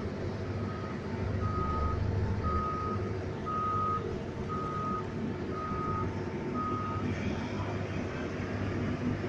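A reversing warning alarm beeps seven times, about once a second, and stops about seven seconds in, over a low steady engine rumble.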